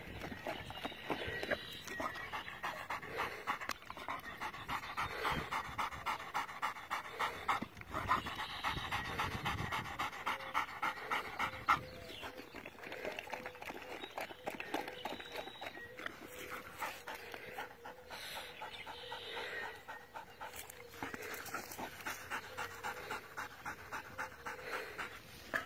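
Doberman pinscher panting with quick, even, rhythmic breaths.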